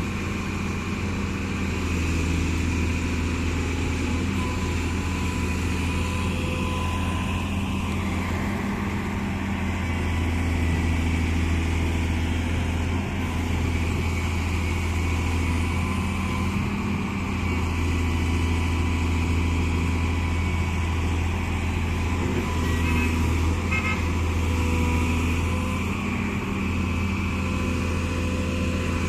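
Excavator's diesel engine running steadily under working load, its low drone swelling and easing a little every few seconds.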